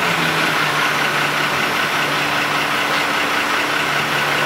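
An engine idling steadily, an even hum with no changes in speed.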